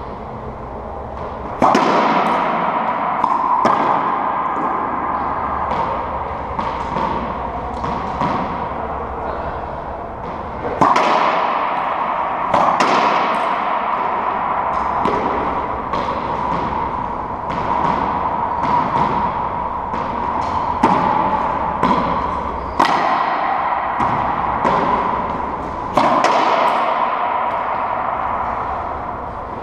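Racquetball rally: a series of sharp cracks as the ball is struck by racquets and rebounds off the court walls, each hit ringing on in the court's echo, coming in irregular runs with short pauses between points. A steady hum runs underneath.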